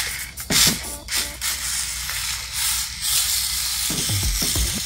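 Mini RC drift car's small electric motor and gears whirring as it runs across a hardwood floor. A few sharp clicks come in the first second and a half, and some low knocks come near the end.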